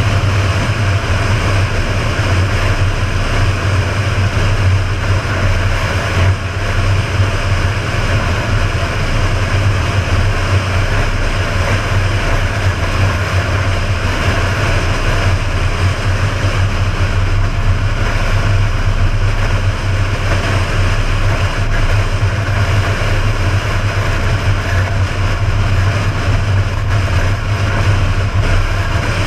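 Steady low drone and rushing wind and road noise of a vehicle cruising at highway speed, picked up by a camera mounted outside on its roof.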